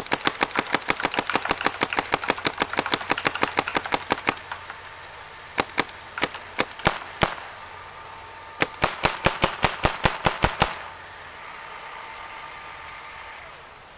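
Planet Eclipse Gmek mechanical paintball marker firing sharp shots: a fast string of about six shots a second, then a few spaced single shots around halfway, then another quick string that stops about three-quarters of the way through.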